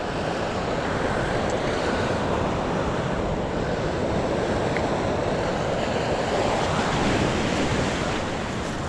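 Steady wash of ocean surf on a sandy beach, mixed with wind on the microphone.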